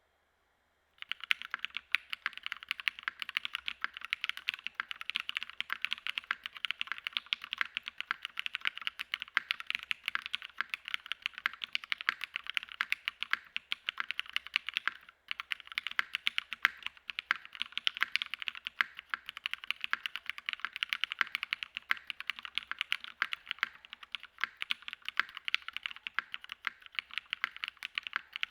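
Continuous typing on a TGR 910 RE mechanical keyboard fitted with retooled Cherry MX Black linear switches on an aluminium plate with no foam in the case. Steady, rapid keystrokes begin about a second in, with a brief pause about halfway through.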